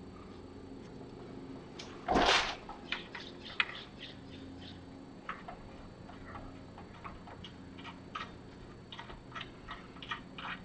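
Small metal clicks and taps at irregular intervals as a bolt is fitted by hand through the pivot arm of a home-made steel machine skate, with a brief loud clatter about two seconds in.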